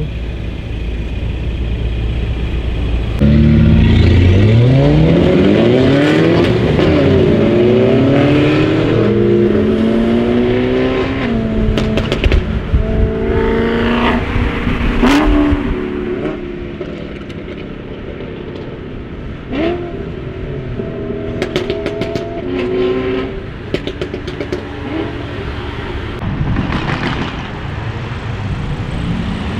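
Mini Cooper S F56's turbocharged four-cylinder engine through a decat Fi straight-pipe exhaust, accelerating hard with revs climbing through several gear changes a few seconds in. Then a string of sharp pops and bangs from the exhaust as the throttle is lifted, heard from inside a following car.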